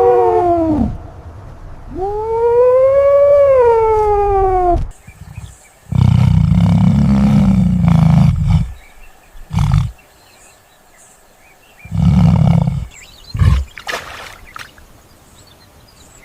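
A series of animal calls. First a long pitched call that rises and then falls, then several deep, low-pitched calls: a long one and three shorter ones.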